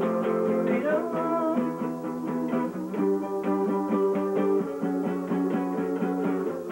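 Live instrumental music: an electronic keyboard playing sustained chords and steadily repeated notes with a plucked, guitar-like sound, and a melody line that slides up in pitch about a second in.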